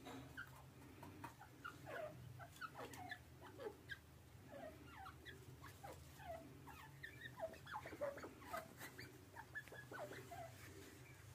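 Faint, short squeaky calls, most falling in pitch, a few a second, from a female grey francolin settled on her nest to lay. A steady low hum runs underneath.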